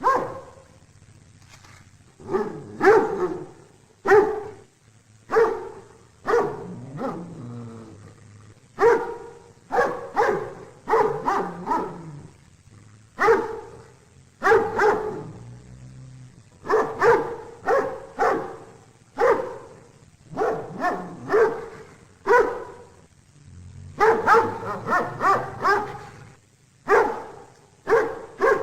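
A dog barking repeatedly, single barks and quick runs of two to four, with short pauses between them.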